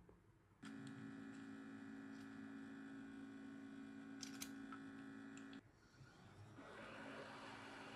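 Faint steady electrical hum with several pitches that switches on about half a second in and cuts off abruptly about five seconds later, followed by a faint rushing noise that rises near the end.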